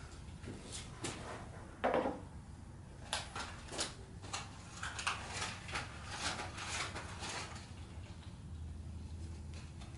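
Light handling noises of guy wire being worked onto a bonsai branch: scattered small clicks and rustles, with a single knock about two seconds in and a busier run of clicks in the middle as the wire is pulled and twisted.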